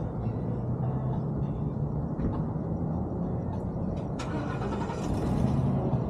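Kawasaki Vulcan S 650's parallel-twin engine running while riding, with a steady low drone, and a louder rush of noise about four seconds in that fades near the end.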